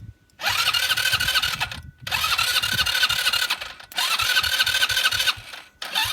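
Go-kart buggy's starter motor cranking the engine in four bursts of a second and a half to two seconds, with short breaks between, as the starter terminals are bridged by hand to bypass a failed key-start circuit. The engine turns over but does not catch.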